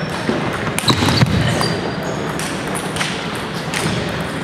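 Table tennis ball clicking off bats and the table in a doubles rally, a few sharp clicks about a second in, over the steady murmur of a busy hall.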